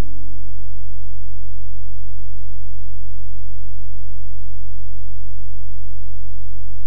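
Loud, steady low electrical hum, like mains hum on the soundtrack; a held note of the music before it fades out in the first second.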